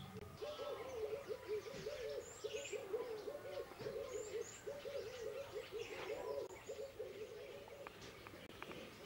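Doves cooing over and over in a steady run of low calls, with small birds chirping faintly higher up.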